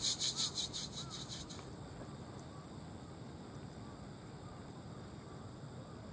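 Insects chirping in the grass: a fast, evenly pulsing high trill that fades out about a second and a half in, leaving a faint, steady high insect hum.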